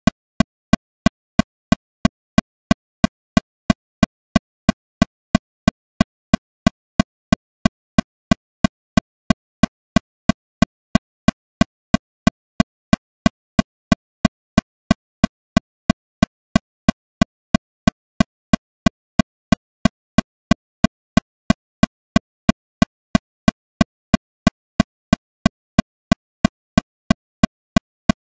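Metronome clicking steadily at 182 beats per minute, about three sharp, evenly spaced clicks a second.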